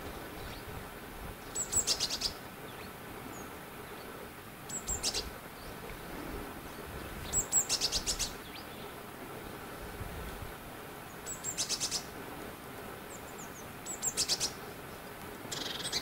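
A small songbird singing a short, high, rapid phrase, repeated about six times at intervals of two to four seconds.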